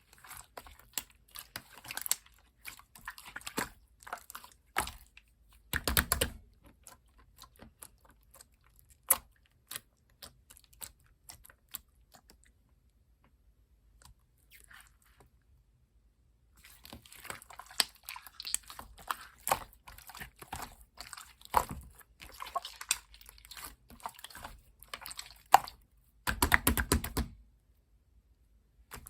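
Clear blue slime being squished and pressed by hand, making quick wet clicks and crackly pops in clusters. The sound drops off for a few seconds in the middle, and a louder, denser burst of squishing comes near the end.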